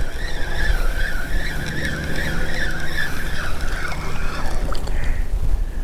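Spinning reel whining as line is reeled in against a hooked fish, the pitch wavering up and down with the cranking, until it fades out about three and a half seconds in. Wind rumbles on the microphone underneath.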